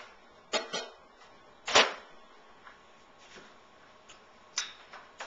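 A handful of sharp knocks and clacks of hard objects being handled and set down on a table: a pair about half a second in, the loudest just under two seconds in, and two more near the end.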